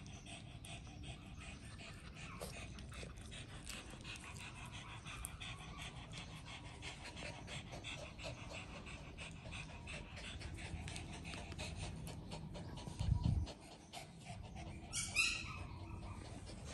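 Small dogs panting, with many light ticks throughout, like claws on a tile floor. A dull thump comes about 13 seconds in, and a short squeal falling in pitch about 15 seconds in.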